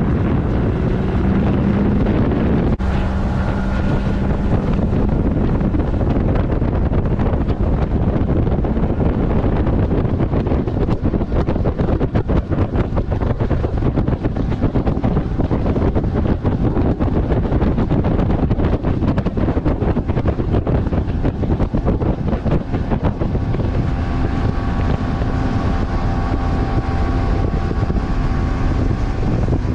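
A fishing boat's outboard motor running under way, with heavy wind buffeting on the microphone.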